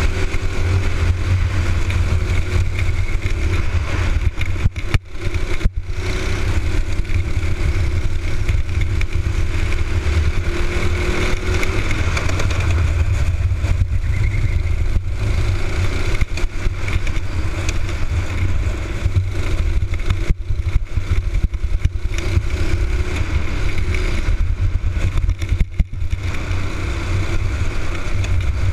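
Racing kart's Honda engine running hard at race pace, heard from onboard with a heavy low rumble under it. The note rises and falls slowly with the throttle and drops briefly about five seconds in and again near the end.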